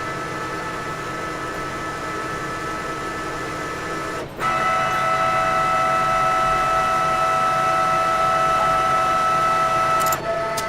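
Metal lathe running, a steady machine whine made of several held tones. A little over four seconds in it breaks off for a moment and comes back louder and higher, then changes again near the end.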